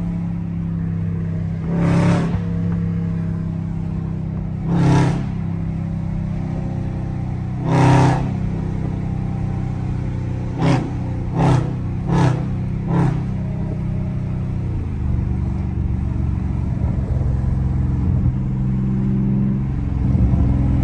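Straight-piped, catless exhaust of a Dodge Charger Scat Pack's 392 Hemi V8 under way, heard from inside the cabin with the windows down. It runs as a steady deep drone, with several brief louder hits, four of them in quick succession about halfway through. The note drops lower and heavier about three-quarters of the way in.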